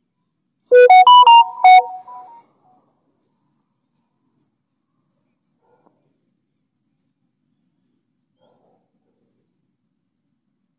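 A short, loud electronic jingle of five quick pitched notes, rising and then falling, about a second in, like a ringtone or notification chime. Near silence follows.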